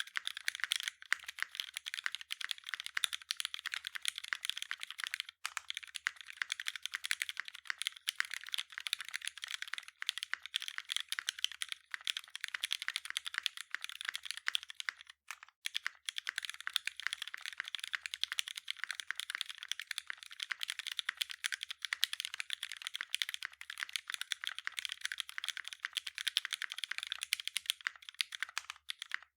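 Continuous fast typing on a custom 65% mechanical keyboard with lubed and filmed Retool Black linear switches on a 1.5 mm brass plate, gasket strip mounted with no dampening foam, GMK keycaps: a dense stream of keystroke clicks with a few brief pauses.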